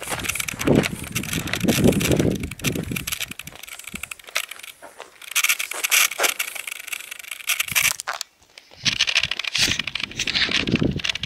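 Wind gusting over the camera microphone, a rumbling buffet that rises and falls, with crackling hiss on top.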